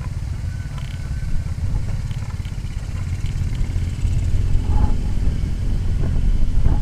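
Wind buffeting the microphone: a steady, fluctuating low rumble with no clear pitch.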